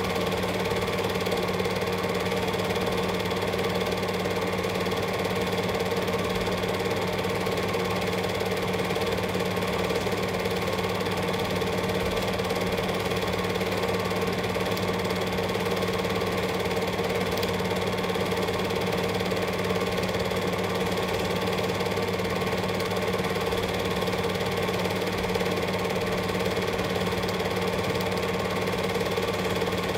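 Cine film projector running: a steady mechanical whirr and clatter from the film transport, with a low hum underneath.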